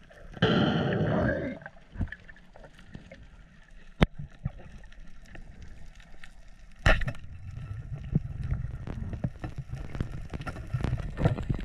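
Underwater sound picked up by a diving camera: a loud gurgling rush of bubbles in the first second or so, then a few sharp clicks, and a low rumble of moving water in the last few seconds.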